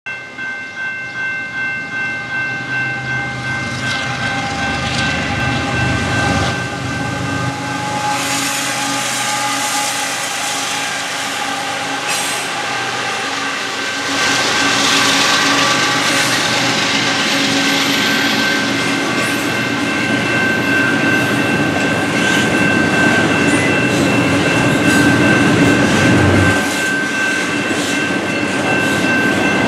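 Level-crossing bell ringing steadily while a Canadian Pacific double-stack intermodal freight train passes, with the noise of its wheels on the rails growing louder about halfway through as the container cars go by.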